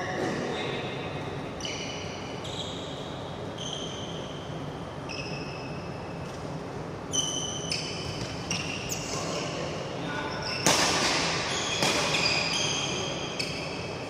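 Badminton doubles rally: many short, high shoe squeaks as players' soles grip and slide on the court surface, with sharp racket strikes on the shuttlecock, the loudest about two-thirds of the way through.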